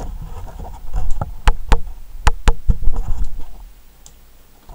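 Close handling noise: a hand rubbing and knocking around the microphone while holding a folding knife against the camera, with a low rumble and about six sharp clicks between one and three seconds in.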